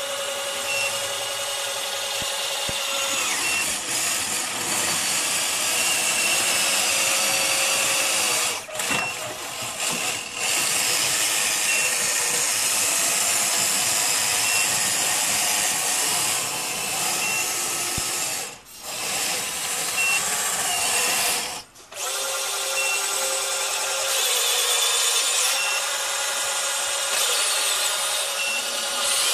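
Electric drive motors and gearboxes of a Bruder D11 toy bulldozer converted to radio control, whining steadily as its plastic tracks run. The drive stops briefly four times: twice a third of the way in and twice past the middle.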